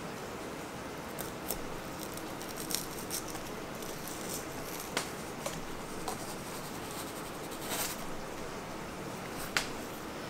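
A kitchen knife cutting asparagus spears lengthwise on a cutting board, with the spears being handled and set down: a scattering of soft clicks and taps, one louder near the end, over a steady low room hum.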